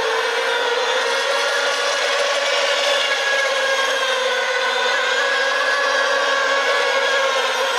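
Radio-controlled model racing boats running flat out: a steady, high buzzing whine from their small high-revving motors, wavering slightly in pitch.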